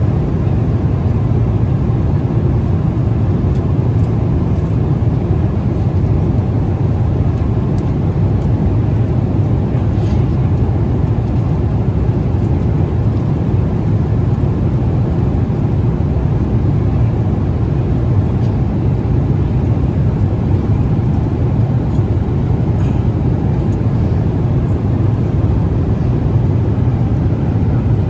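Steady low rumble inside the cabin of a Boeing 777-300ER airliner, with a few faint clicks.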